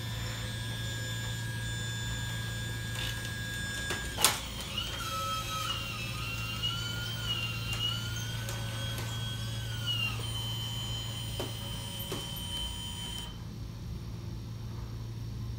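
RC hydraulic excavator's track drive motors whining as it drives, the pitch wavering as the sticks are worked, over a steady low hum. There is a sharp click about four seconds in. The whine stops about ten seconds in, leaving a thin steady tone for a few more seconds.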